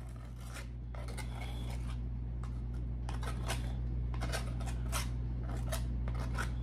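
Table knife scraping mayonnaise across a crisp tostada shell: a run of short scrapes and clicks, over a steady low hum.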